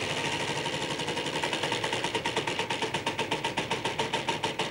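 Game-show prize wheel spinning, its pegs clicking rapidly against the pointer. The clicks slow steadily as the wheel loses speed.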